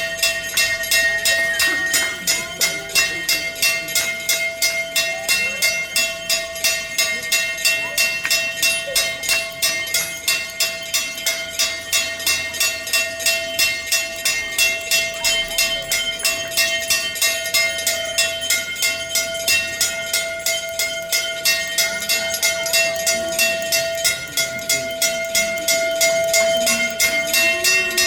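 Temple bell rung continuously during aarti, struck in a fast even rhythm of about three to four strokes a second, its ringing tone held without a break.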